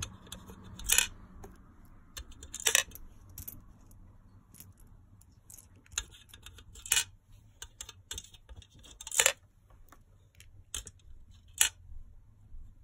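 Plastic game discs dropped one at a time into an upright four-in-a-row grid, each landing with a sharp plastic clack. About five loud clacks a couple of seconds apart, with lighter clicks between.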